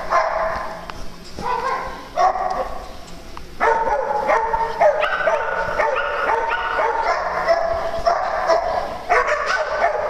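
Several small dogs yapping and barking excitedly over one another. The calls thin out from about one second in and come back thick and continuous at about three and a half seconds.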